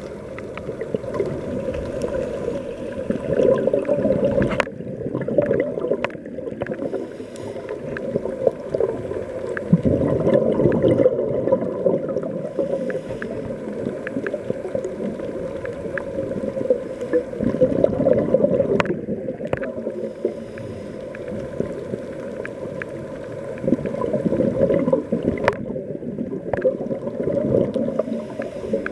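Underwater sound through a camera housing: a low rushing and gurgling of a scuba diver's exhaled bubbles, swelling about every seven seconds, with scattered small clicks.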